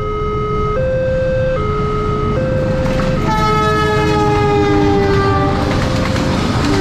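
Electronic level-crossing warning siren (a Multec unit) alternating between two tones about every 0.8 s. About three seconds in, a train horn sounds and falls in pitch as the train passes, and the loud rumble and clatter of the passing train follows near the end.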